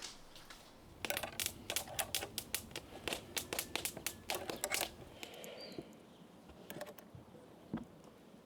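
A dense run of sharp, irregular clicks and cracks, starting about a second in and lasting about four seconds, followed by a short high chirp.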